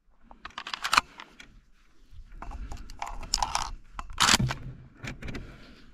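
Clicks, scrapes and rattles of a Benelli SuperNova pump-action 12-gauge shotgun and its shells being handled at the receiver and loading port. The loudest is a sharp click-and-rattle about four seconds in.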